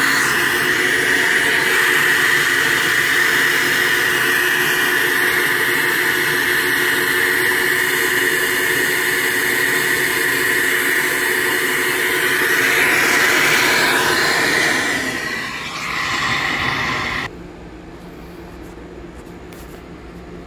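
A cylinder-head flowbench running, with air rushing steadily through the intake port, the valve at 0.600 in. lift, while Dykem is sprayed into the airstream to show the flow pattern. The flow cuts off abruptly about 17 seconds in, leaving a much quieter steady hum.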